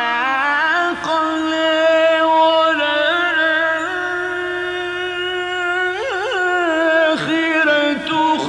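A male Quran reciter chanting in long, held melodic phrases with gliding ornaments, including a wavering trill about six seconds in: melodic tajweed recitation of the Quran.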